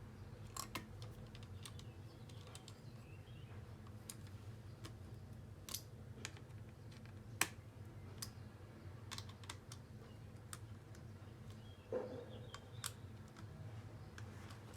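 Scattered light clicks and taps of small laptop parts and a screwdriver being handled on a workbench, uneven in timing, with one sharper click about halfway through and a short knock near the end, over a faint low hum.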